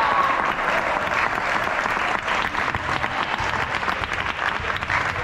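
Spectators applauding: many hands clapping fast and overlapping, with a slight dip about two seconds in.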